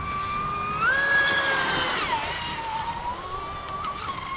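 Pro Boat Impulse 32 RC speed boat's brushless motor whining at speed on an 8S battery. The pitch steps up about a second in, holds, and drops back down a little after two seconds as the throttle changes.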